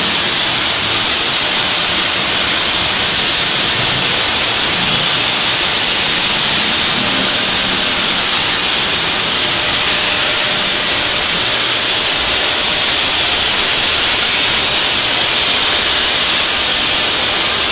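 Handheld electric blow dryer running continuously as it dries a chow chow's thick coat: a loud, steady rush of air with a thin, high motor whine.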